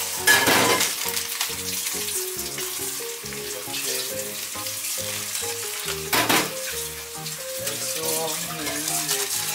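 Steady sizzling hiss of cooking on the stove under light background music, with two brief louder noises, one just after the start and one about six seconds in.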